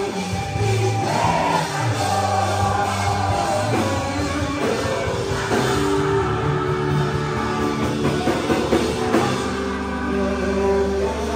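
Live gospel worship band, with electric guitars, drum kit and keyboard, playing a rock-style song while a singer on a microphone leads and the congregation sings along.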